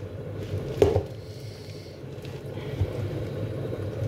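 Hands squishing and kneading sausage meat into stuffing mix inside a plastic jug, with one sharp knock a little under a second in.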